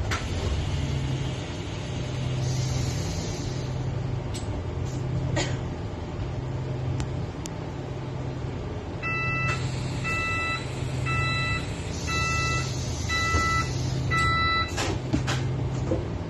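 Bus engine running at low speed, heard from inside the cabin as a steady low hum with a few rattling knocks. About halfway through, a series of six electronic warning beeps sounds, about one a second.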